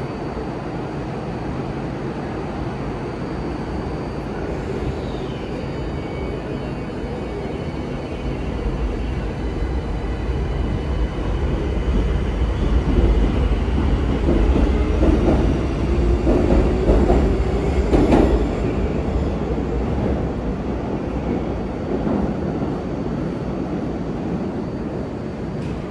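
Tokyo Metro Ginza Line subway train pulling out of the platform. A low rumble swells from about ten seconds in, with a motor whine rising in pitch, then eases off near the end.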